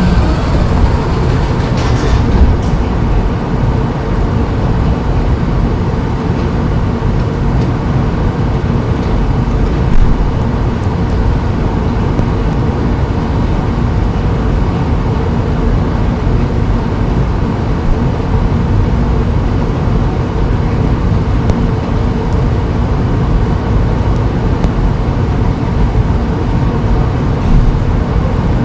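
Steady low rumble of a vehicle in motion, with a faint steady hum.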